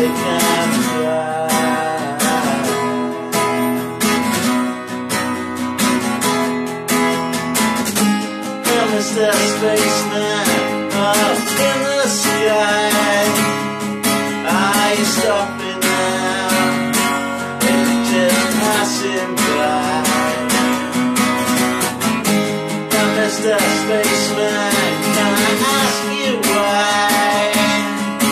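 Epiphone acoustic guitar with a capo, strummed steadily in a tiled bathroom, with a man's voice singing over it at times.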